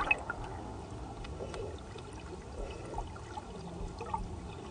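Water heard underwater: a steady wash with faint scattered small pops.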